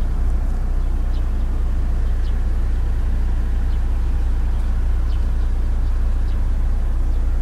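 Steady low idle of a 2012 Mitsubishi Montero Sport's diesel engine, heard from inside the cabin, with a few faint high chirps over it.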